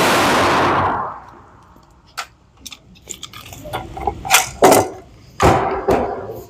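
A gunshot, fired just before, dying away over about the first second and a half; then scattered sharp clicks and knocks, with two louder ones around the middle and a heavier clatter near the end.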